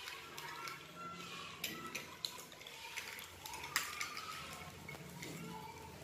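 Spoons stirring thick homemade slime in small glass bowls, scraping and clinking irregularly against the glass.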